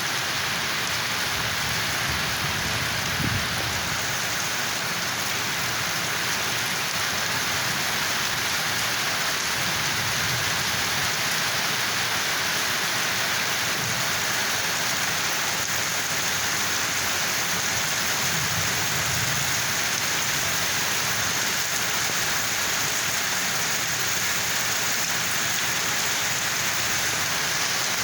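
Heavy rain falling steadily, an even dense hiss of drops on surfaces, with a few faint low rumbles underneath.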